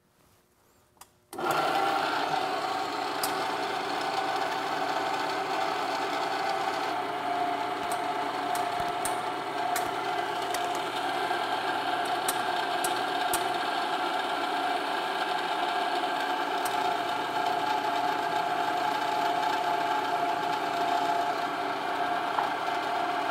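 Powered shop press running steadily as its ram presses a cam bore plug tight into an engine block, starting about a second in. A few faint clicks are heard over it.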